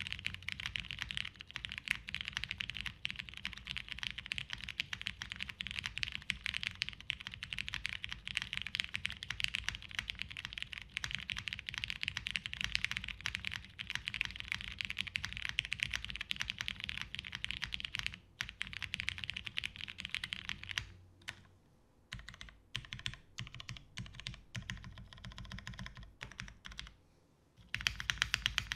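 Typing on a custom TGR Jane V2CE mechanical keyboard with lubed, broken-in brown tactile switches on an FR4 half plate and Cherry-profile dye-sub keycaps. Rapid, steady keystrokes thin out to slower, scattered presses with short pauses about 21 seconds in, and fast typing picks up again near the end.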